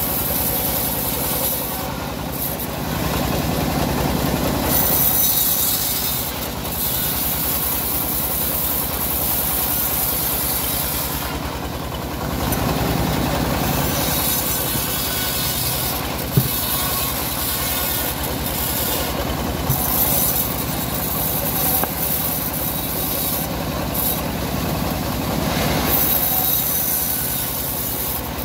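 Homemade bandsaw mill running steadily while its blade cuts along a teak log, the cutting hiss swelling and fading as the log is fed through. A single sharp knock about 16 seconds in.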